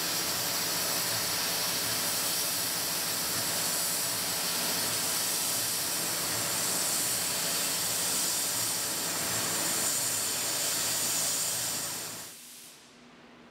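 Tormach 770 CNC mill cutting a Delrin rotor with an end mill, under a steady loud hiss from the nozzle blowing at the cutter. The sound fades out about a second before the end.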